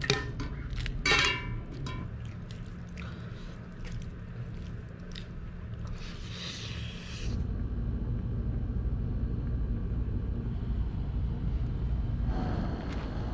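Metal utensil clinking twice against a metal bowl of noodles, ringing briefly, then a steady low rumble that grows louder about seven seconds in.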